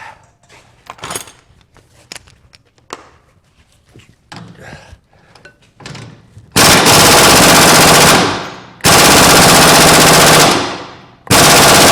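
Pneumatic impact wrench hammering on a seized leaf-spring shackle nut in three long bursts, after some light clicks of tool handling. The nut does not budge.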